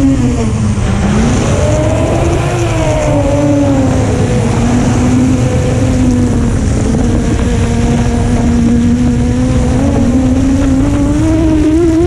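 FPV quadcopter's brushless motors whining in flight over a steady low rumble. The pitch dips about a second in, climbs again, holds fairly steady, then rises near the end.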